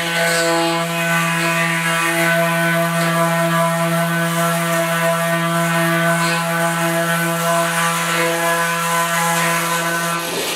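Corded oscillating multi-tool running at a steady, constant-pitch buzz as it sands body filler on a sheet-metal panel; it stops right at the end.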